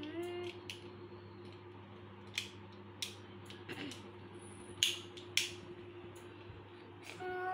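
Detachable parts of a die-cast crash-toy car being handled and snapped back onto its body by hand. About five separate sharp clicks are spread over several seconds, with the two loudest close together about five seconds in.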